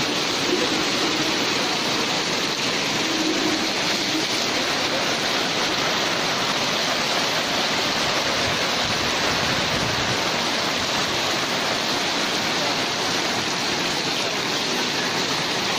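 Heavy downpour: a steady, even rush of rain falling on tarpaulin canopies and pouring off their edges in streams.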